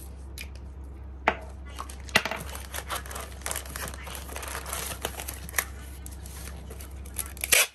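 Packaging being handled: plastic and paper rustling and crinkling, with a few sharp clicks and taps.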